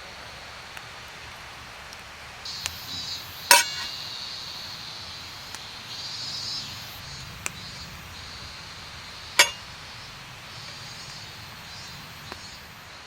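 Two sharp ringing metal clinks, about six seconds apart, with a few lighter ticks between, over a steady outdoor hiss.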